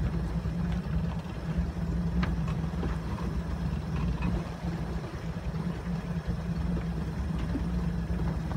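A fishing boat's engine running steadily at slow trolling speed, a low, even drone.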